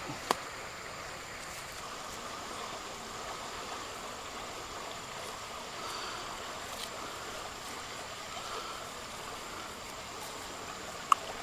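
Steady sound of river water running. There is a short click just after the start and a louder sharp click near the end.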